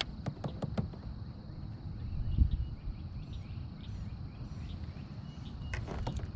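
Quiet pond ambience with faint short bird chirps. A quick run of sharp clicks from handling fishing tackle in the kayak comes at the start and again near the end, and a low thump about two and a half seconds in.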